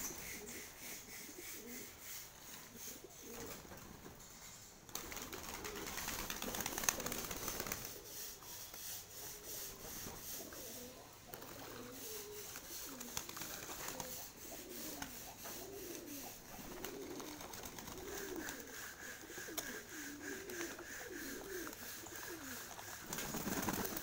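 Domestic pigeons cooing, a long run of low, rolling coos one after another, with a stretch of rustling noise about five seconds in.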